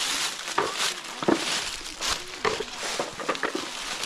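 Dry fallen oak leaves crackling and rustling in short, irregular bursts as hands sift through them to pick up acorns.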